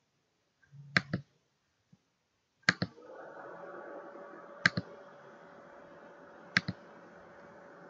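Computer mouse clicks: four quick double clicks, press and release, about two seconds apart. A faint steady hum with one held tone comes in after the second click.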